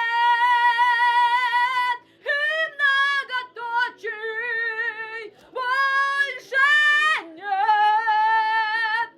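A woman singing a melody in phrases of long held notes with a light vibrato, with short breaths between phrases.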